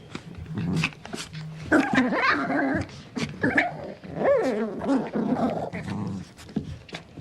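Puppy growling and whining, with pitched whines that bend up and down about two and four seconds in, among many short clicks.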